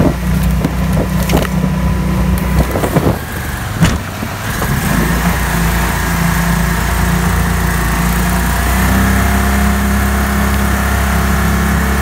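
Pro-Drive 36 hp mud motor running under way at a steady drone, stepping up slightly in pitch about nine seconds in. Several sharp knocks and rattles in the first four seconds.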